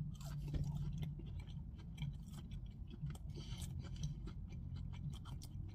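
A person biting into and chewing a crispy breaded fried chicken nugget: soft, irregular crunches and mouth clicks over a steady low hum.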